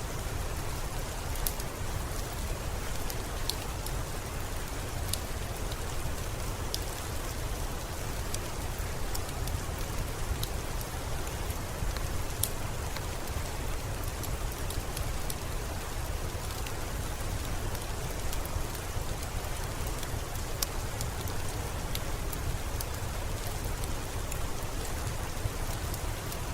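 Steady rain falling, a constant hiss with a low rumble, with scattered sharp crackles and pops from a wood fire every second or so.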